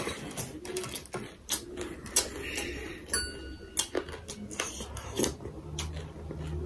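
Close-miked eating sounds: chewing and mouth clicks with scattered small taps. About three seconds in, a metal spoon clinks against a steel bowl and rings briefly.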